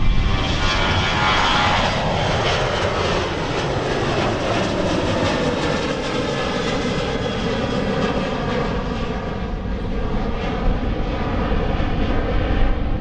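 Jet airliner passing close under power: a heavy engine rumble throughout, with a set of engine tones sliding down in pitch over the first few seconds as it goes by.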